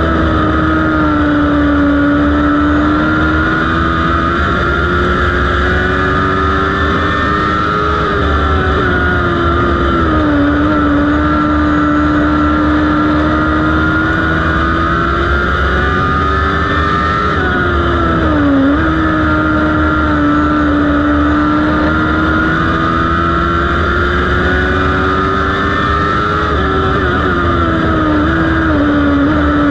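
Modlite dirt-track race car's engine at racing speed, heard from inside its cockpit. The engine note climbs slowly, then drops sharply three times, about eight seconds apart, before climbing again.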